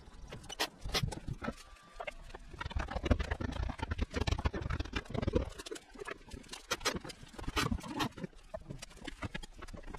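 Irregular knocks and clicks over a shifting, rumbling noise: sped-up time-lapse sound of wooden boards and tools being handled during woodworking.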